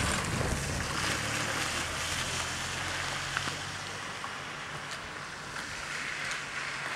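A car driving past on a wet, slushy road, its low engine hum fading away, under steady wind noise on the microphone.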